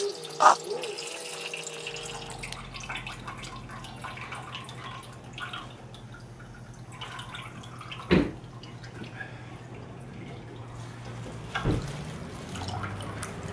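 Apple juice trickling and dripping from a wooden basket cider press into a plastic tub as the pulp is squeezed. Three sharp knocks stand out: one right at the start, one past halfway and one near the end.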